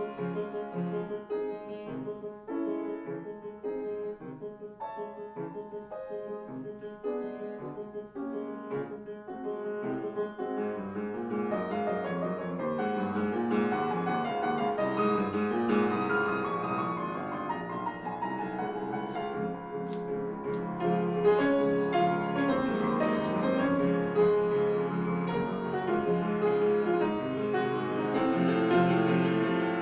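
Background piano music: separate notes at first, growing fuller and louder from about a third of the way in.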